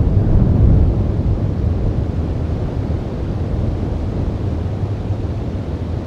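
Wind buffeting the microphone: a steady low rumble with no distinct events, strongest in the first second or so.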